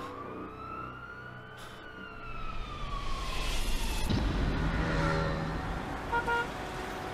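A siren wails, rising and then falling in pitch, as a car comes past close by with a swelling engine and tyre rumble; a little after six seconds a car horn gives two short toots.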